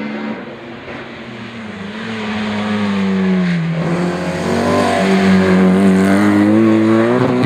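Opel Kadett C race car's engine under hard acceleration, growing louder as it approaches. The revs drop about three to four seconds in, then climb steadily and break with a gear change near the end.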